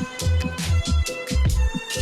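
Electronic dance music with heavy bass hits and a fast drum beat.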